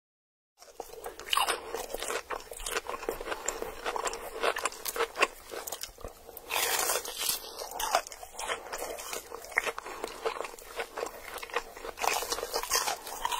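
Close-up crunching and chewing of food: a dense, irregular run of crisp bites and munching that starts about half a second in, after a moment of silence.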